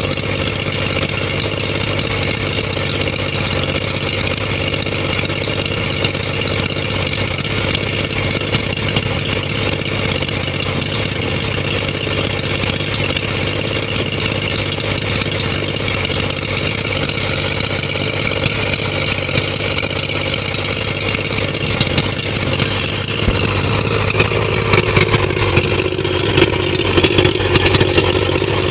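75 hp Mercury/Mariner two-stroke outboard idling steadily, run out of the water on a flushing hose. From about 23 seconds in it is louder and more clattery, heard close to the uncovered powerhead.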